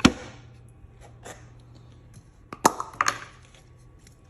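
A few sharp clicks and light taps from handling small plastic glue and activator bottles and the workpiece: one click at the start, a faint tap about a second in, then two clicks close together just before three seconds.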